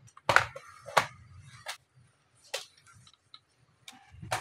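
About five sharp plastic clicks and knocks as an HP 2000 laptop is handled on a table and its lid is opened, the loudest two in the first second.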